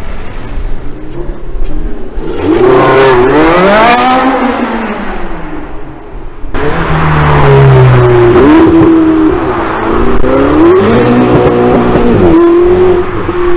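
Porsche 918 Spyder's V8 revving hard as it pulls away, the note climbing and then falling. After a cut, a red Ferrari's engine accelerating hard, its note climbing and dropping back at each upshift, about three times.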